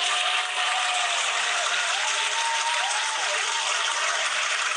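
Recorded crowd applause played as a sound effect: steady, dense clapping at full level from the start, with a few rising-and-falling cheers in the middle.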